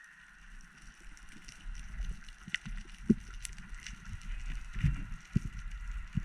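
Underwater ambient noise: scattered faint clicks and crackle with irregular low thumps and knocks, the strongest about three seconds and about five seconds in.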